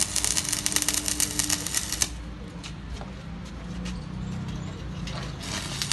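Electric arc (stick) welding crackling and sputtering as steel bar is welded onto a minibike frame, stopping about two seconds in, after which only a faint low hum and a few ticks remain.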